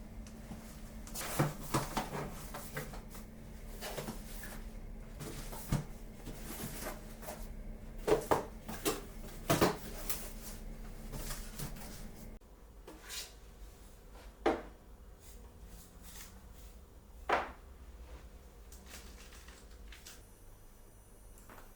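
Scattered clicks and knocks of small objects being handled and set down, a cluster in the first half and a few single knocks later, over a low steady hum that cuts off partway through.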